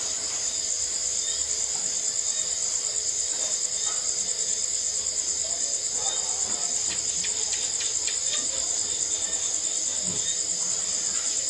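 Steady, high, finely pulsing chirring of crickets. About two-thirds of the way through come a run of faint soft clicks, fitting a rabbit chewing leafy greens.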